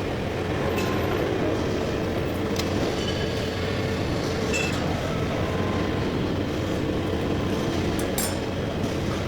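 Heavy-duty lathe running steadily while turning a large steel part: an even machine drone with a low hum, and a few short light clicks about two and a half, four and a half and eight seconds in.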